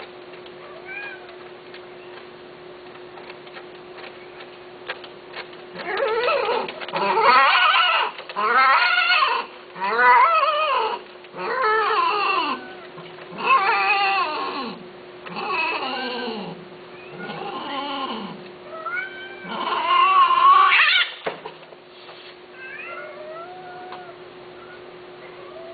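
Persian cats caterwauling while mating: a run of about nine loud, drawn-out yowls, each about a second long, with fainter calls before and after.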